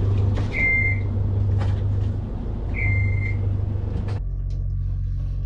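Yanmar marine diesel engine running steadily while the sail-drive seal warning alarm gives two short, high beeps about two seconds apart. The alarm comes on intermittently, which the owner thinks is caused by a chafed sensor wire rubbing on grounded metal. About four seconds in the beeping stops and a different steady hum carries on.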